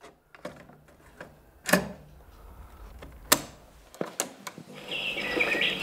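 ITT radio cassette recorder being loaded and started: a series of sharp plastic clicks and clunks as the cassette goes in and the piano-style START key is pressed down, with the loudest clunks a little under two seconds and about three seconds in. Near the end the tape starts playing and its sound comes in.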